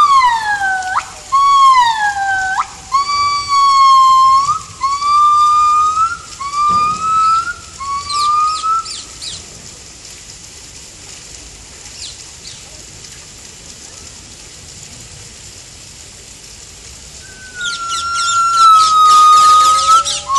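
Yellow-cheeked gibbons singing in pure, whistle-like notes: a long falling note, then a run of short notes that each rise in pitch, coming quicker and stopping about nine seconds in. After a pause of several seconds a long steady note starts, breaking into a fast run of notes near the end.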